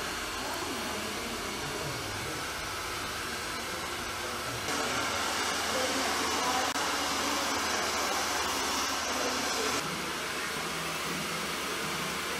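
Handheld hair dryers blowing a steady hiss as hair is blow-dried, louder for about five seconds in the middle.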